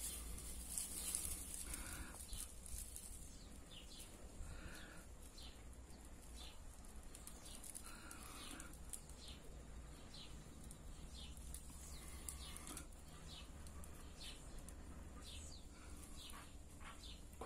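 A smoking dry-grass tinder bundle rustling in the hands as a hand-drill ember is nursed toward flame. Birds chirp throughout in short falling notes.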